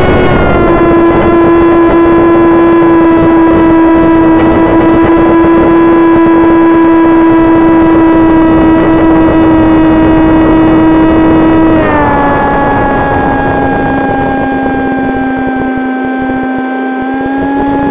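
AR900 FPV flying wing's electric motor and propeller whining steadily at high throttle, heard from the onboard camera, with wind rushing over the microphone. About twelve seconds in the pitch steps down as the throttle is eased back.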